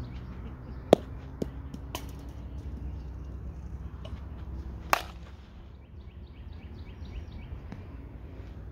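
Two sharp cracks of a softball bat striking pitched softballs, about a second in and again about four seconds later, the first the louder, with a few fainter knocks soon after it. A faint series of quick, high chirps runs behind.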